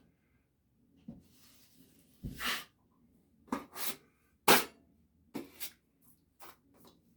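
Drywall taping knife scraping joint compound along a wall corner: a series of short, uneven scrapes, with a sharp knock about four and a half seconds in.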